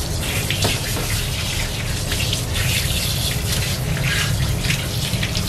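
Water running from a hose into a bathtub, a steady rush with irregular splashes.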